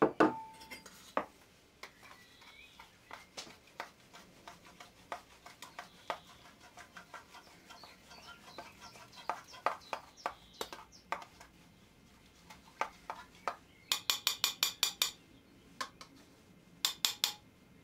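A spoon knocking and clinking against a cup while dry yeast is stirred into lukewarm water. Scattered light knocks lead to two quick runs of rapid clinks, about eight a second, near the end.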